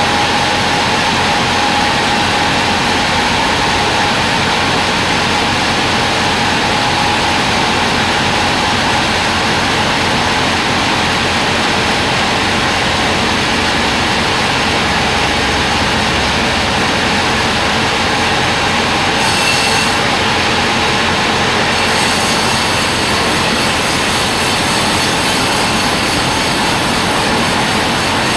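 Log band sawmill running with a loud, steady mechanical noise, its blade and drive working timber into boards and frame stock.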